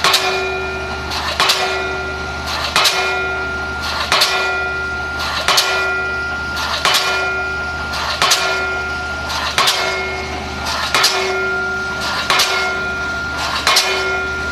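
APE D19 single-acting diesel pile hammer driving a pile, striking in a steady rhythm about once every 1.4 seconds, each loud blow followed by a short ring, over a steady low hum.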